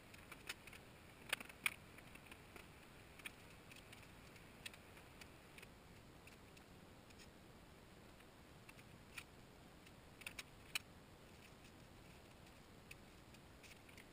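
Scattered light clicks and clinks of stainless tubing and tools being handled and set down on a metal workbench, with the loudest knocks a little over a second in and a quick cluster around ten seconds in.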